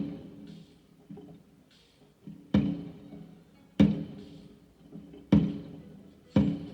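Fireworks going off: a run of sharp bangs, some loud and some fainter, about one to one and a half seconds apart at uneven spacing, each echoing away with a faint crackle after some of them.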